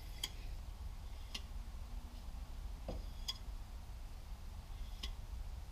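Faint, sharp clicks at uneven intervals of about one to two seconds over a low steady hum.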